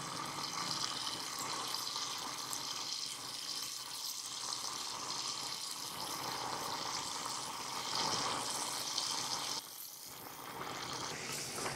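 Marinated anchovies sizzling in hot oil as they are lowered one by one into a small saucepan for deep frying: a steady frying hiss that dips briefly near the end.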